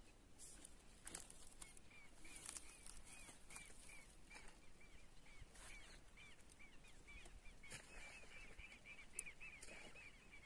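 Faint, quiet scene with a bird calling in a quick run of short, high, repeated chirps, several a second, starting about two seconds in. A few soft rustles or clicks are scattered through it.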